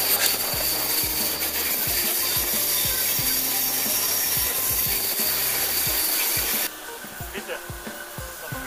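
Steam train running at speed, heard from an open carriage window: a steady rush of noise with irregular clatter of wheels over the rails. About seven seconds in it cuts abruptly to the quieter running of a diesel locomotive drawing into a station.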